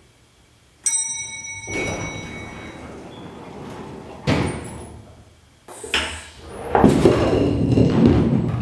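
An elevator chime rings once about a second in, then the elevator doors slide open. Two sharp knocks follow, and near the end a bowling ball rolls across a hard floor with a steady low rumble.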